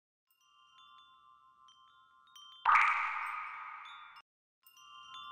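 Logo intro sting of soft, tinkling chime tones, broken about two and a half seconds in by a sudden bright shimmering hit, the loudest part, which fades and cuts off; the chime tones return near the end.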